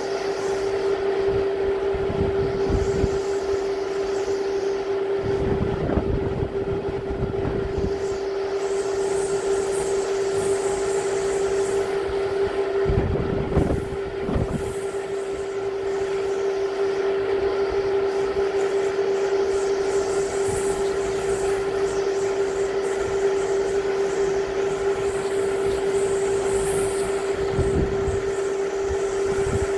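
Typhoon wind blowing hard and steadily, with gusts buffeting the microphone several times. A steady droning tone runs underneath.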